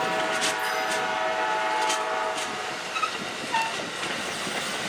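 Amtrak Amfleet passenger cars rolling past close by: a steady rumble with scattered clicks of the wheels over the rail joints. A drawn-out tone sounds over it for about the first two seconds.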